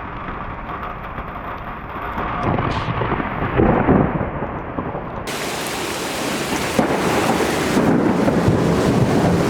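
Thunder rumbling from an approaching thunderstorm, building to its loudest about four seconds in. About five seconds in, a steady rushing hiss sets in abruptly and carries on under the rumble.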